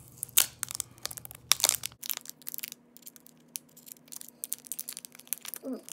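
Clear plastic film being peeled and crinkled off an Apple Pencil: a run of sharp crinkling crackles, loudest in the first two seconds, then lighter and scattered.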